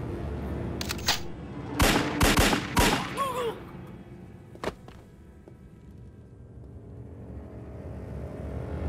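Gunfire: a single shot, then a rapid volley of several shots about two seconds in, which is the loudest part, and one more shot near the five-second mark, followed by a quieter stretch.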